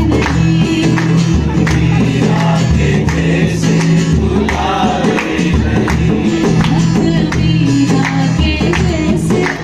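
Music with singing over a steady bass line and regular hand-percussion strokes.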